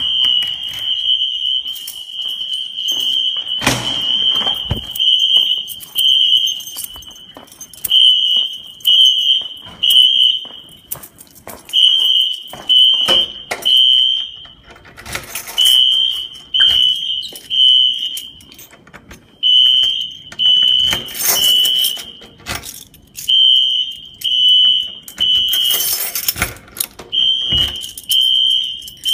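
Fire alarm sounder beeping a high tone in the temporal-three evacuation pattern: three short beeps, a pause, then again, repeating. A few knocks or rattles come in between.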